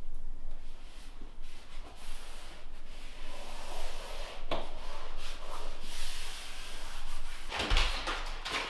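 A faux-wood floor plank scraping as it is slid and worked under cement board flooring, with a sharp knock partway through and a louder thump near the end.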